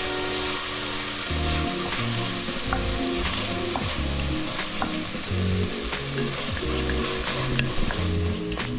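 Onions, garlic, tomatoes and spices sizzling in hot oil in a pot as they are stirred, with a few light clicks of the spoon toward the end. Background music with a low bass line runs underneath.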